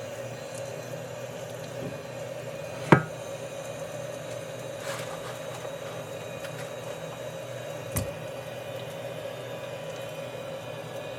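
A steady low hum, like a running appliance or fan, with two sharp clinks: a louder one that rings briefly about three seconds in, and a lighter one about eight seconds in.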